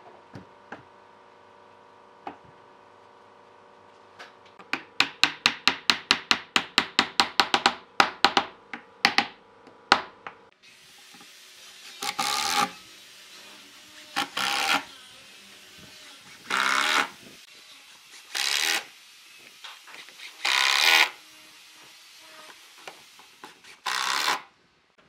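A quick run of about two dozen sharp taps that slows and stops, then six short bursts of a cordless impact driver driving screws through the leg bases into the wooden tabletop.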